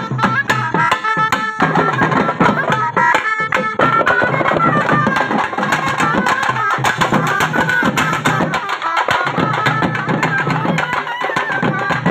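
Folk procession music: several barrel drums beaten in a fast, dense rhythm, with a high wavering melody line playing over them.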